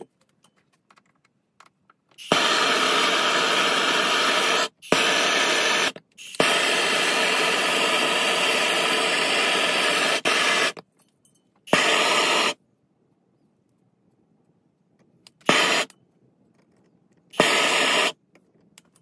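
Gas blowtorch flame hissing steadily while it heats a brass joint for soldering, in several spells that start and stop abruptly; the longest last about four seconds, later ones under a second, with quiet gaps between.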